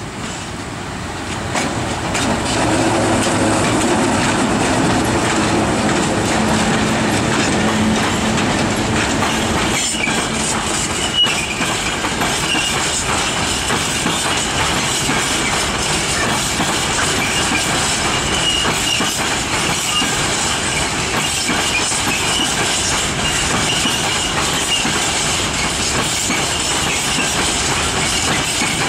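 Freight train passing close by: two EU07 electric locomotives go by with a low hum, then a long rake of Innofreight RockTainer ore-container wagons rolls past with a steady clickety-clack of wheels over the rail joints and a thin, high wheel squeal.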